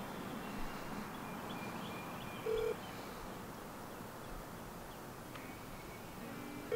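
A single short electronic beep from a smartphone held to the ear during a call, about two and a half seconds in, over a low steady hiss with faint bird chirps.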